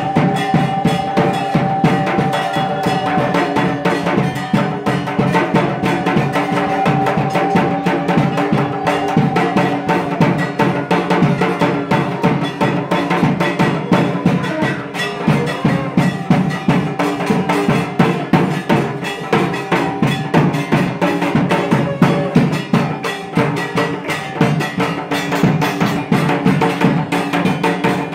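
Fast, continuous drumming with a held tone sounding above it for the first several seconds, typical of drumming played during a Durga puja ceremony.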